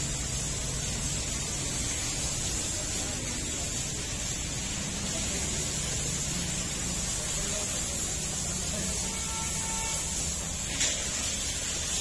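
Steady hiss with a low hum underneath, unbroken and even in level, with one faint click a little before the end.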